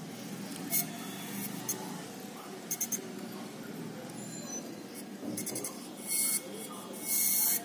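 Steady low hum with several short, hissy scraping sounds, from an opened hard disk drive running on USB power that is failing to be detected.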